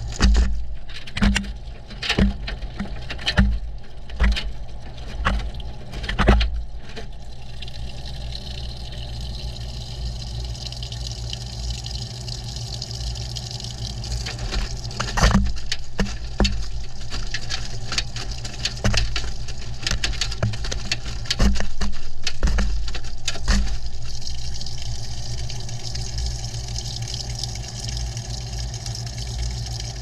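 Front-loading washing machine heard from inside its drum during a wash: water sloshing and a steady low hum as the drum tumbles the laundry. Clunks of items hitting the camera come about once a second for the first several seconds and again now and then in the middle.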